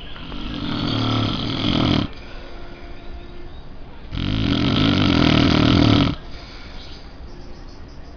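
A sleeper snoring heavily. Two long snores of about two seconds each come roughly four seconds apart, with quieter breathing between them.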